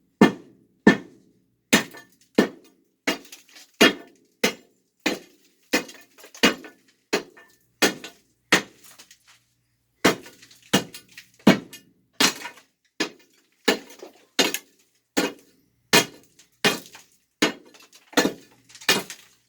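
Steel pry bar jabbed repeatedly into a concrete floor to crack it, sharp impacts about one and a half a second, with a short pause about halfway through.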